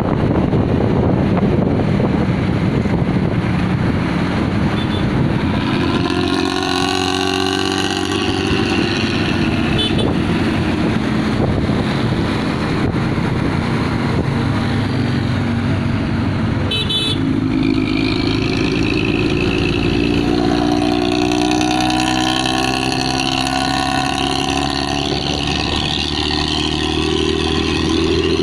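Bus diesel engine running through a rumbling, rasping 'ngorok' (snoring) exhaust, the old-style open exhaust note. It starts as a dense rumble, then the engine note climbs in pitch as the bus pulls away, drops at a gear change about 17 seconds in, and climbs again.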